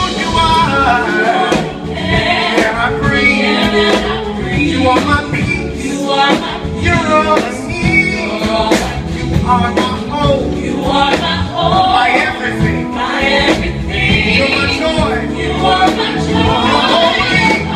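Live gospel song: a male lead singer with a backing vocal group singing over band accompaniment with a steady beat.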